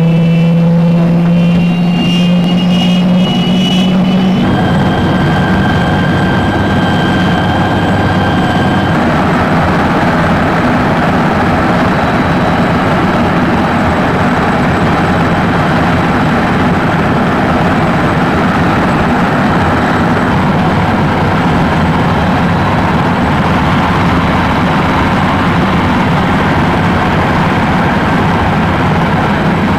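Helicopter in flight heard from inside the cabin: a loud, steady engine and rotor drone with a faint high whine. The opening few seconds hold a different steady engine hum, which breaks off abruptly at about four seconds and changes again at about nine seconds.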